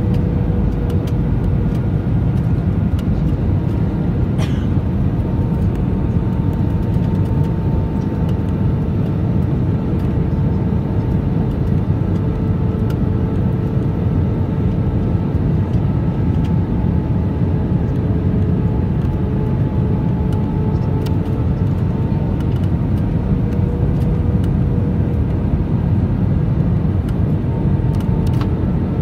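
Cabin noise of an Airbus A320ceo descending on approach, heard inside the cabin: a steady deep roar of airflow and engines. Through it runs a faint steady hum with a fainter higher tone above it, both drifting slightly lower.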